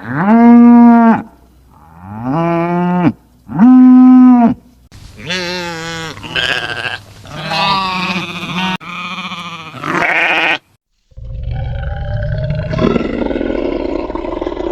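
Livestock bleating loudly: three short, arched calls in the first few seconds, then a run of wavering calls, and from about eleven seconds a rougher, lower call. Calls stop and start abruptly, as clips are cut together.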